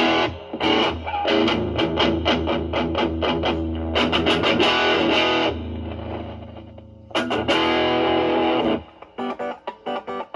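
Stratocaster electric guitar with single-coil pickups through a Proco Brat distortion pedal (OP07 op-amp chip) at full gain into a Marshall Valvestate amp, the guitar's volume knob rolled back so the drive cleans up. Chords and notes are played, one chord rings and fades about halfway through, and short choppy notes come near the end.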